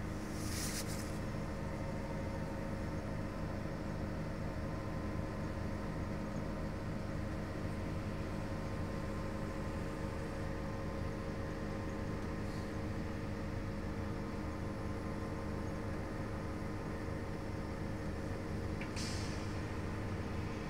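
Inside a 2011 New Flyer DE60LFR diesel-electric hybrid articulated bus standing still: a steady hum from the idling drivetrain with several steady whining tones. A short hiss of air comes about a second in and again near the end.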